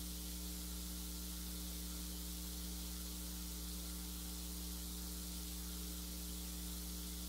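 Steady electrical mains hum with a faint hiss, the recording's own background noise, unchanging throughout.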